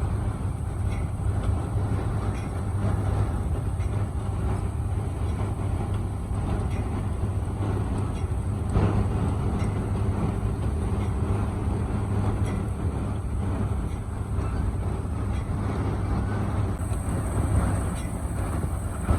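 Heavy engine-driven machinery running steadily with a constant low hum and rumble.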